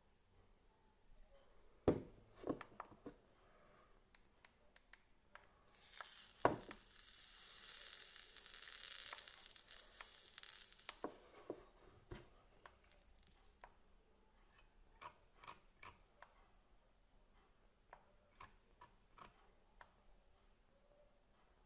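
Quiet handling noise from working on the coil deck of an Aspire Neeko RTA: small metal clicks and taps, with a few sharper knocks around two and six seconds in. A soft scratchy rustle runs for several seconds in the middle.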